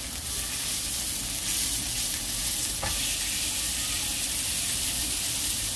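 Slices of beef top blade (부채살) sizzling steadily as they fry in hot fat.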